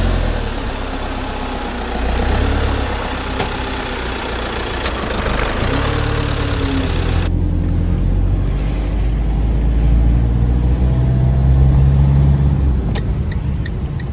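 Fiat Ducato camper van's engine pulling away and driving at low speed, its pitch rising as it speeds up about six seconds in. From about halfway it is heard from inside the cab as a steady engine hum.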